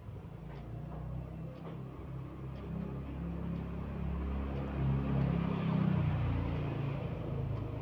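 Low engine rumble of a passing vehicle, growing louder to about six seconds in and then easing off.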